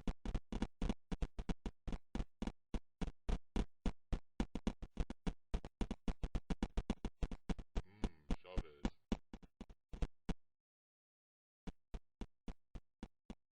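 A rapid, irregular series of sharp clicks or taps, about five or six a second, with a brief voice-like sound about eight seconds in and a pause of about a second near the end.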